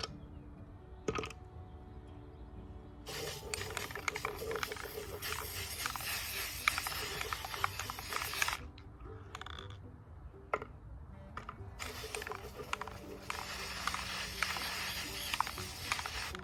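Aerosol can of acrylic sealer spraying in two long hissing bursts of about five and four seconds, with a few clicks between them, over soft background music.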